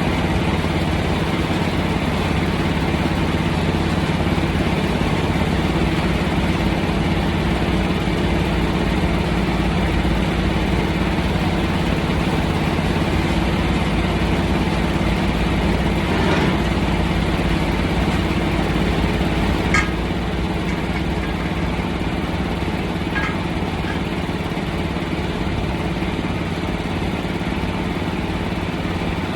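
Engine idling steadily, with a sharp click about twenty seconds in, after which it runs slightly quieter.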